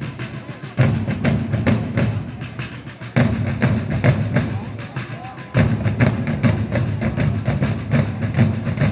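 Parade drums of a historical flag-throwers' group beating a marching cadence: rapid, crisp strokes over a deeper drum that restarts in phrases about every two and a half seconds.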